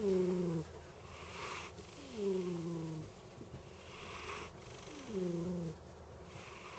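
Domestic cat snoring in its sleep: three snores about two and a half seconds apart, each a low tone that falls slightly in pitch and is followed by a softer breathy hiss.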